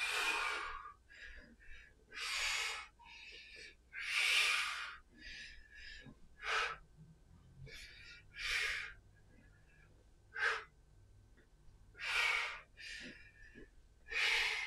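A man breathing hard from exertion while swinging a clubbell: a sharp, noisy breath roughly every two seconds, about eight in all.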